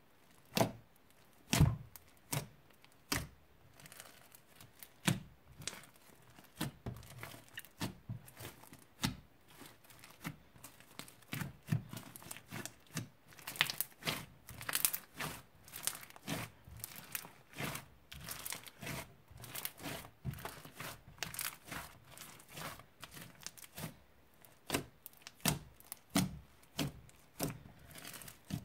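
Crunchy slime with beads mixed in, squeezed, kneaded and poked by hand: irregular sticky pops and crackles, about one or two a second, coming thicker in places.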